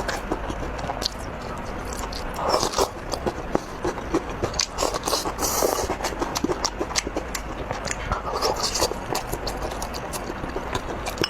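Close-miked eating: a person biting and chewing food with their mouth near the microphone. There are many short, crisp crackles and wet mouth sounds.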